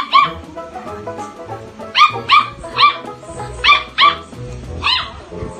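A dog barking in short, high-pitched yaps, about eight in all: two right at the start, then six more spread over the second half.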